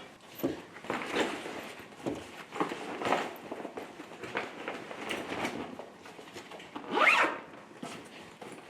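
A zipper being pulled in a series of short scratchy strokes, the loudest and longest about seven seconds in.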